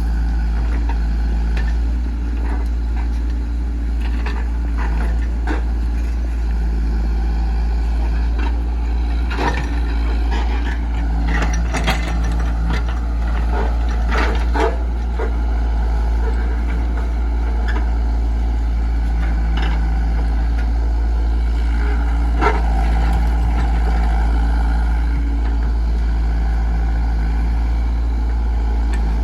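Komatsu PC68 excavator's diesel engine running with a steady low rumble, with occasional sharp knocks and clanks from the working machine.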